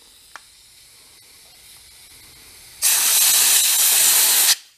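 Compressed-air blowgun blowing out a small lawn mower carburetor after a rinse, to clear dirt from its fuel passages. A faint hiss and a small tick come first; about three seconds in, a loud blast of air hisses for nearly two seconds and cuts off sharply.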